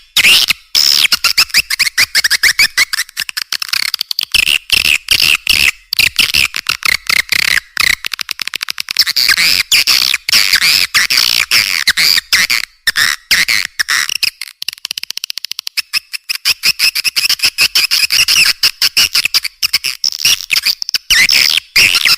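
Swiftlet call recording of the kind swiftlet farmers play to draw the birds to a nest house: a dense, rapid, nearly unbroken chattering of high twittering chirps.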